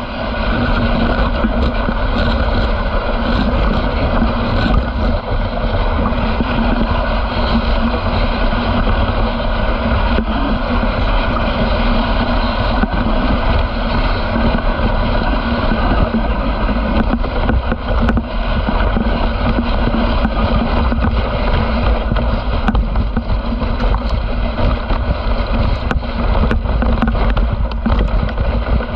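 Dog sled running over a packed snow trail: a steady hiss and rumble of the sled on the snow, with wind buffeting the microphone. A few sharp knocks come in the second half.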